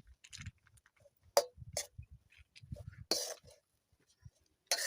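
Metal spoon knocking and scraping against a cooking pot while maize flour is stirred. Three sharp clinks come about a second and a half in, around three seconds in (a longer scrape) and near the end, with dull low thumps between them.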